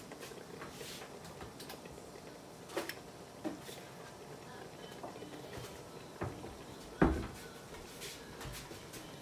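Scattered knocks and clatter of someone working in a kitchen, like cupboards and drawers being shut, with one heavy thump about seven seconds in, over a faint steady background.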